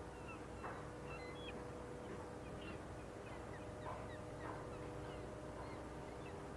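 Birds calling: scattered short high chirps and squawks, with a few louder calls about two-thirds of a second in and around four seconds in, over a steady low hum.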